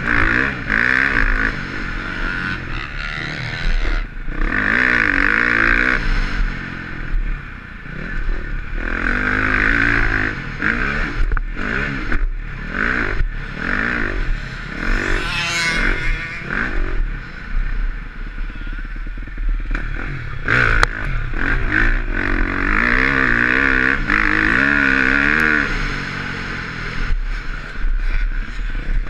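A 2020 KTM 350 XC-F's single-cylinder four-stroke engine is ridden hard, its pitch rising and falling over and over through the gears. Scattered knocks and clatter come from the bike over the rough dirt.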